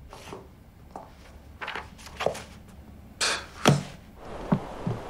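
Paper rustling as the pages of a paperback book are turned several times, then a sharp thump a little past halfway, the loudest sound, followed by a few light knocks.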